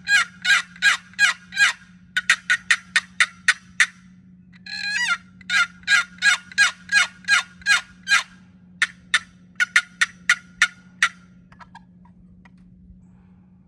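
Wooden turkey box call, a bloodwood lid inlaid with white cedar on a solid mahogany box, played by hand. It makes several series of turkey yelps, some runs quicker and sharper than others, and stops about eleven seconds in.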